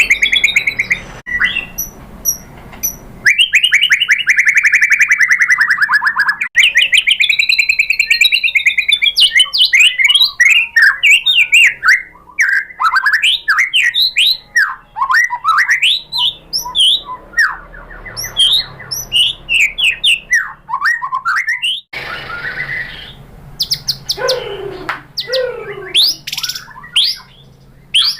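White-rumped shama song: long buzzy trills, sweeping whistles and rapid chattering notes in quick succession, broken by several sudden stops and restarts.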